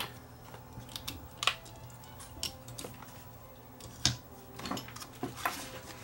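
Scattered clicks and light clacks of alligator test clips being handled and clamped onto the terminals of a sealed lead-acid UPS battery, the loudest about four seconds in.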